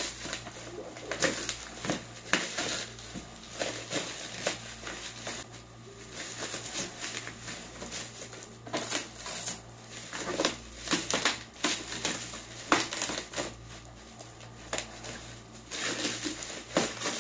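Plastic film and bubble wrap crinkling and crackling as they are cut with scissors and pulled off a boxed office chair, in irregular crackles throughout.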